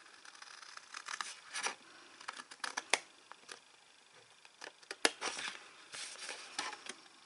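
Small craft scissors snipping into white cardstock along a score line. The short, crisp cuts come in two runs with a pause of about a second between them.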